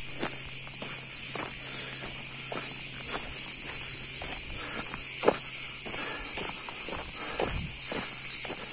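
Steady shrill buzz of cicadas in the pine trees, with footsteps on a dry dirt trail about twice a second.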